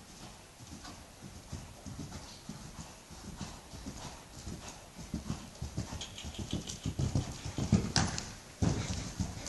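Hoofbeats of a ridden horse on arena sand, quickening from a walk to a canter and growing louder as the horse comes close. A single sharp, louder noise comes about a second before the end.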